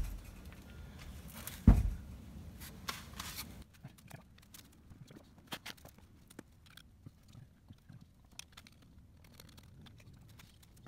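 A single heavy hammer blow on the rear axle hub, struck to loosen the tapered wedges that hold the axle shaft, about two seconds in. Afterwards come faint scattered clicks and small knocks of metal parts being handled.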